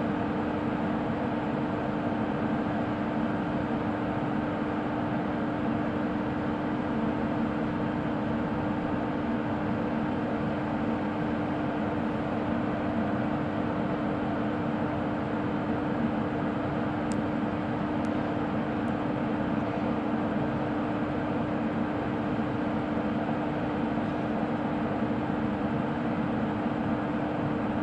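WAP1 25 kV AC electric locomotive standing energised and idling: a steady hum with one constant low tone over an even rushing noise. A few faint high ticks come about two-thirds of the way in.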